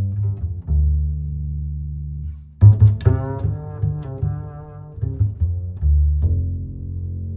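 Music with deep, sustained bass notes; a sudden loud hit comes about two and a half seconds in, and higher notes join after it.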